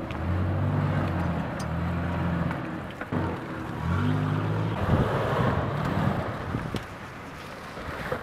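Mitsubishi Pajero SUV engine pulling under load through mud. It runs steadily, eases off briefly around three seconds in and picks up again. From about five seconds it gives way to a rougher churning as the tyres throw mud.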